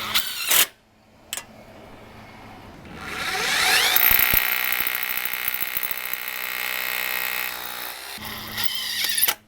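Power drill driving a screw to fasten the screen track: the motor winds up about three seconds in, runs steadily for about four seconds, then stops.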